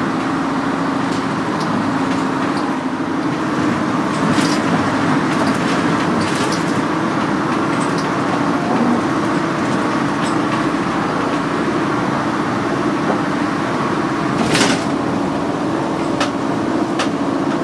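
Steady road and engine noise heard from inside a moving vehicle's cabin, with a few sharp knocks or rattles, the loudest about three-quarters of the way through.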